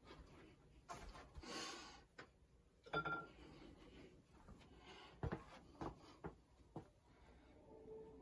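Quiet handling noises of acrylic painting with a paintbrush: scattered light clicks and rubs, a brief scrubbing sound about a second and a half in, and a sharper clink with a short ring about three seconds in. A soft held tone comes in near the end.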